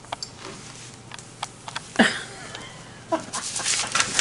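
A domestic cat's brief call about two seconds in, amid scattered light clicks and rustling.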